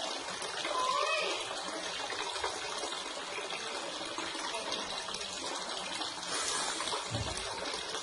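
Small tiered garden fountain running: a thin stream of water falling from a jug spout into a small basin and spilling into a larger basin below, a steady trickle and splash.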